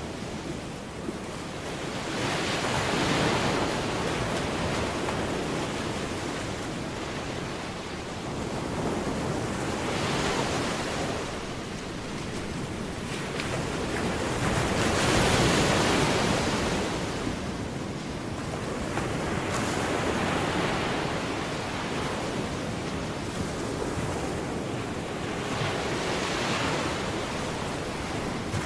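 Ocean surf: waves breaking and washing back, the rushing noise swelling and fading about every five to six seconds.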